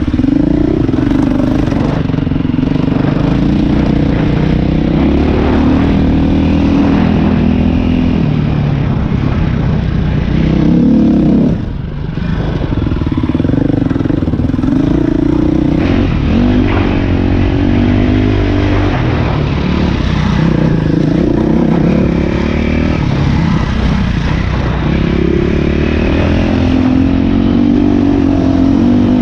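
Dirt bike engine running under load on a trail, its pitch rising and falling as the throttle is worked. About twelve seconds in the throttle briefly comes off, then the engine revs back up.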